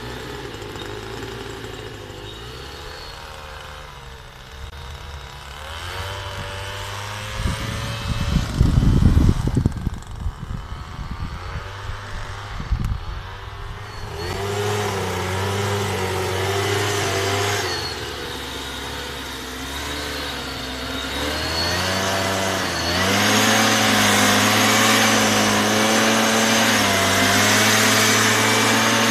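Small two-stroke engine of a backpack motorized mist blower running while it fogs insecticide over cabbage, its speed shifting up and down, then running louder and higher-pitched for roughly the last third. A stretch of heavy low rumbling about a third of the way in.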